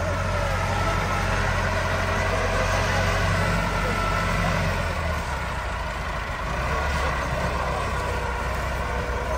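Tractor diesel engine running steadily, its note shifting about five seconds in.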